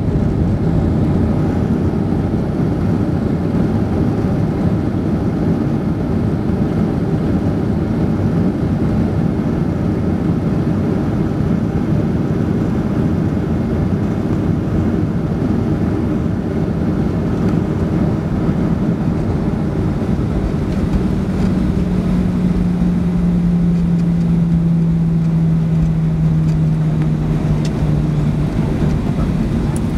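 Cabin noise of a Boeing 737-800 rolling out on the runway after touchdown: a steady rumble of the tyres and the CFM56 engines. About two-thirds in, a low hum sets in and slowly falls in pitch.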